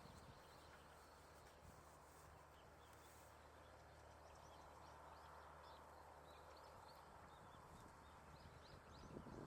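Near silence outdoors with a low steady hum and faint, scattered high chirps from small birds, growing more frequent after the first few seconds.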